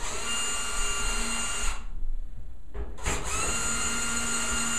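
Cordless drill-driver running in two bursts of about two seconds each, a steady motor whine with a short pause between, turning screws on the dryer's sheet-metal top panel.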